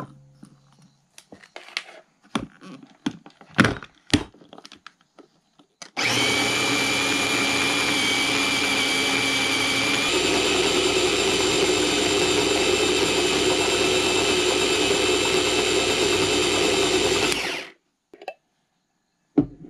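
Small electric food chopper with a glass bowl, its lid and motor top clicked into place, then running steadily for about twelve seconds with a high whine as it chops carrot leaves, walnuts and garlic in olive oil into a paste. Its tone shifts a few seconds after starting, and it cuts off suddenly.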